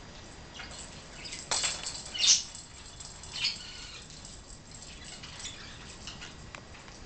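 A budgie and its plastic lattice ball on a hardwood floor: a few short, sharp taps and scuffs, the loudest about two seconds in, with fainter ticks after.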